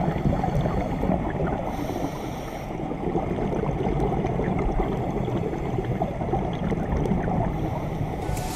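Muffled underwater noise from a camera submerged over a coral reef: a dense, low rushing of moving water with faint crackles.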